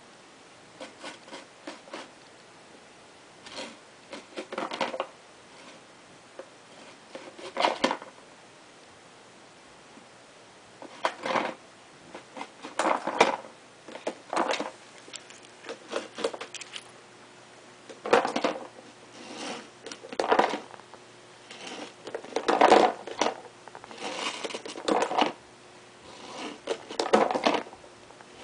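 A clear plastic food container with a red lid clatters, knocks and scrapes on a tile floor in irregular bursts every second or two as a lop rabbit noses into it and shoves it around. The bursts grow louder and more frequent in the second half.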